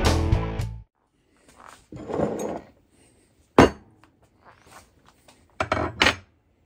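Intro music ending within the first second, then steel gun parts handled on a workbench: a scrape about two seconds in, a sharp knock about three and a half seconds in, and a few more knocks about six seconds in as a barrel and a steel barrel liner are moved and set down.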